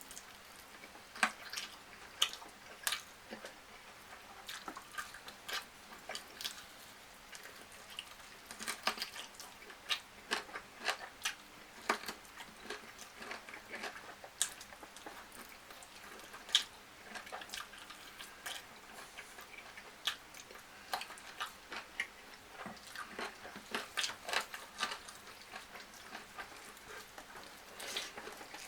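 A person chewing and biting food close to the microphone, with irregular sharp clicks and wet mouth smacks.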